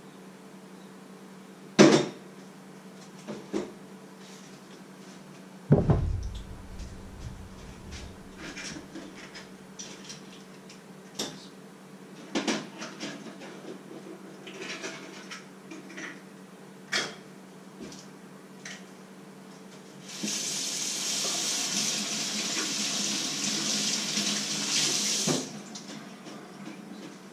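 Dishes and utensils clattering and being set down at a kitchen sink, with a sharp knock about 2 s in and a heavier thud about 6 s in. Near the end a tap runs into the sink for about five seconds, then is shut off abruptly.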